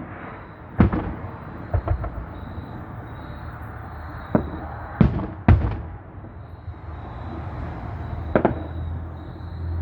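Fireworks going off: a series of sharp bangs at irregular intervals, each trailing a short echo, with a quick cluster of smaller pops about two seconds in.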